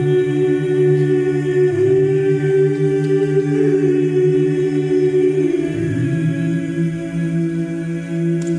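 An unaccompanied vocal ensemble singing long held chords over a steady low drone, in the manner of Georgian polyphonic folk song. The chord changes about six seconds in.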